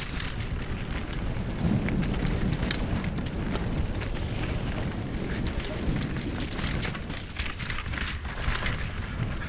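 Riding a mountain bike downhill on a wet dirt trail: a steady rush of wind on the microphone and tyres rolling over damp ground, with frequent clicks and rattles from the bike over bumps.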